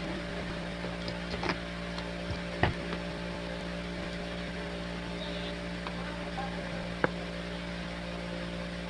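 A steady machine hum, with a few short knocks about one and a half and nearly three seconds in and one sharp click about seven seconds in.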